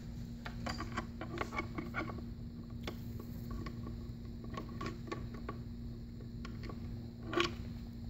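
Small clicks and taps of a power cable plug being fitted into a plastic electronics enclosure by hand. A steady low hum comes on at the start and keeps going, and there is one louder knock near the end.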